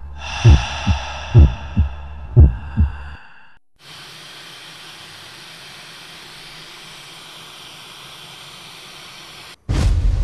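Heartbeat sound effect: paired low thumps about once a second over a breathy whooshing drone, stopping after about three seconds. Then steady television static hiss for about six seconds, which cuts off abruptly as a loud low rumble starts near the end.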